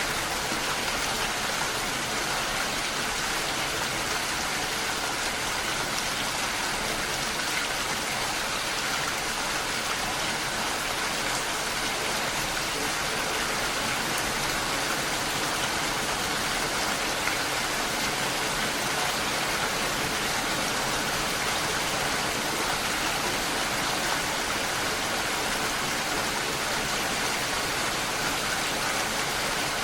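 Steady rain falling, an even hiss of many drops at a constant level.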